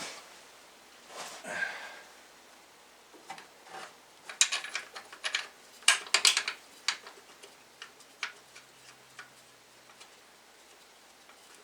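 Irregular metallic clicks and clinks of hand tools and bolts being worked on the alternator mounting. The clicks come in a dense cluster about halfway through, then a few lighter, spaced ticks follow.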